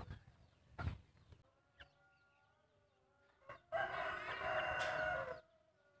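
A rooster crowing once, one long call of about a second and a half, starting just past the middle. A few short soft knocks come before it.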